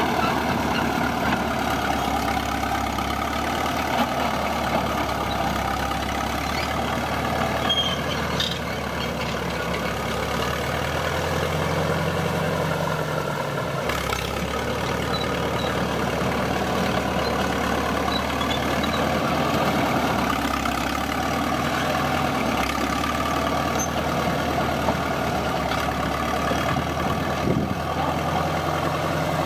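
Caterpillar D4 crawler dozer's diesel engine running steadily while it pushes dirt, its pitch dipping and rising a few times as the blade takes and sheds load.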